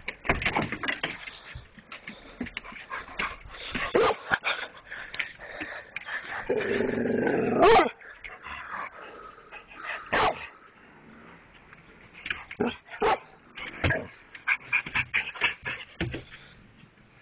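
Dogs barking and yipping in short bursts while they play-wrestle, with one long wavering howl-like whine lasting over a second, about six and a half seconds in.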